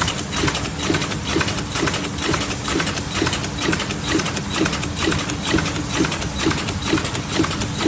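Automatic bottle-cap machine running, with a steady hum and an even mechanical clacking about two and a half times a second.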